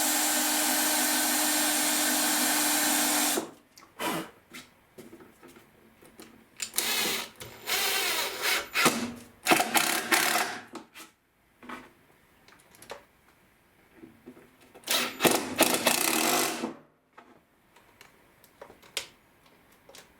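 Power drill running in bursts, drilling and countersinking screw holes in timber. The first run is long and steady and stops about three and a half seconds in. Shorter runs follow around the middle and near the end, with small knocks and handling sounds between them.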